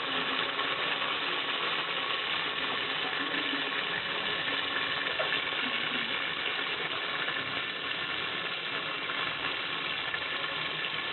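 Sliced onions frying in hot oil with whole spices in a pressure cooker: a steady sizzle.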